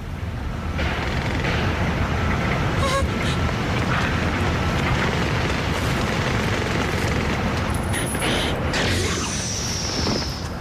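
Loud, steady rumbling sound effects from a TV action soundtrack. A short high whistle falls in pitch near the end.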